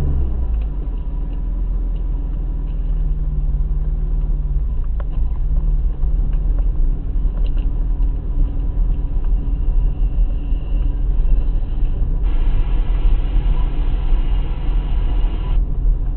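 BMW E30 with a 2.0-litre M50B20 straight-six, running at low revs as the car rolls slowly over a rough dirt track, heard from inside the cabin. A steady low rumble of tyres and body dominates, and the engine's pitched note fades into it after about four seconds. A brief buzzing tone starts suddenly about twelve seconds in and cuts off about three seconds later.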